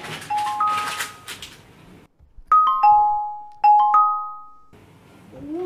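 Background music: a mallet instrument, glockenspiel- or marimba-like, playing a short three-note falling figure over and over. A brief rustle sounds in the first second or so.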